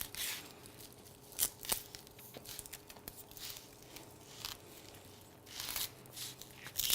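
Knife cutting an onion in half on a cutting board, with a couple of sharp knocks about a second and a half in, and scattered crinkling, tearing rustles of the onion's dry papery skin.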